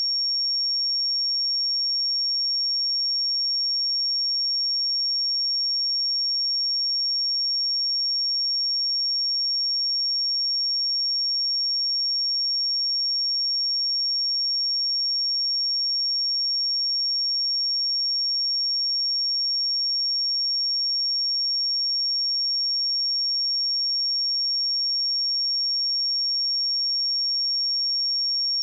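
A single pure 5531 Hz sine-wave test tone: a steady, high-pitched whistle-like tone held at constant pitch and level.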